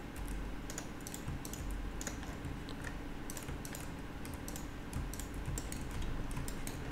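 Computer keyboard keys and mouse buttons clicking in quick, irregular taps as shortcuts and selections are made, over a low steady hum.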